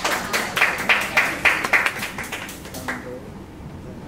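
A small audience clapping by hand, the claps dying away about three seconds in.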